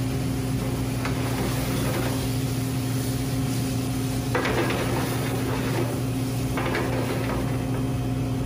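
Shrimp sizzling in butter and sauce in a sauté pan over a gas burner, the sizzle surging louder about four seconds in and again near the end as the pan is tossed, over a steady low hum.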